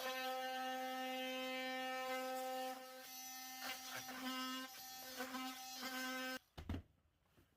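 A small electric power tool running with a steady buzzing hum, stopping suddenly about six seconds in, followed by a couple of short knocks.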